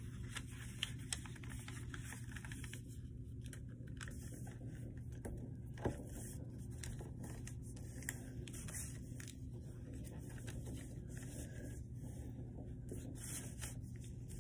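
A sheet of notebook paper being handled and creased by hand: faint rustles and crinkles, with a sharper crackle about six seconds in, over a steady low hum.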